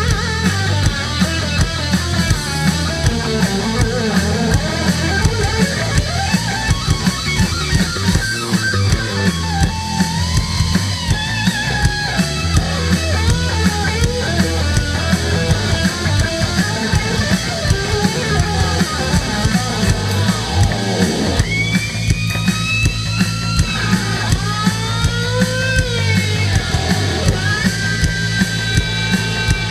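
Live rock band jamming: an electric guitar with a locking tremolo bridge plays a lead line full of bent and sliding notes, over bass and drums keeping a steady beat.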